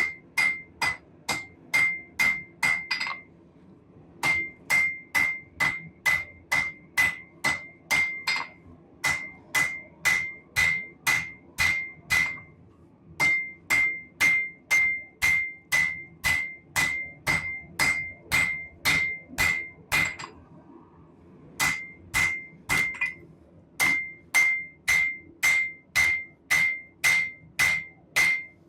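Hand hammer striking a hot Damascus steel billet on an anvil, runs of blows about two to three a second with short pauses between them, each blow with a bright ring. The smith is forge-welding: hammering the borax-fluxed billet at welding heat to re-set a weld that keeps splitting.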